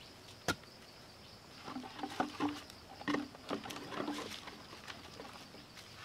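Hollow bamboo tubes knocking and clattering against each other and the stump as they are hung up by their cord. A cluster of short knocks, each with a low hollow ring, comes between about two and four and a half seconds in, after a single sharp knock about half a second in.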